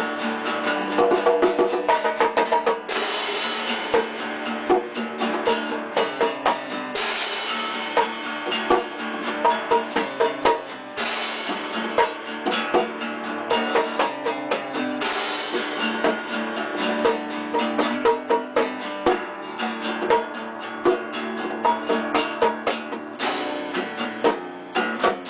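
Amateur jam of strummed guitar with a drum kit keeping a steady beat, with a bright cymbal crash about every four seconds.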